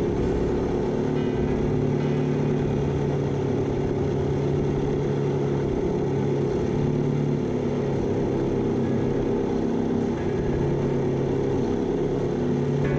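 A 3D-printed RC Benchy boat's electric drive motor running under way, with a steady low hum whose pitch and strength shift a little every second or so over water noise.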